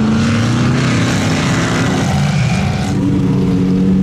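Lifted mud truck's engine running at steady revs as it drives through the mud, with a hiss over it. About three seconds in the hiss drops away, leaving a steadier engine drone.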